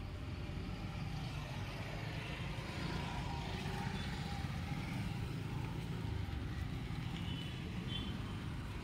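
A steady low mechanical rumble, like a motor running, growing slightly louder in the middle.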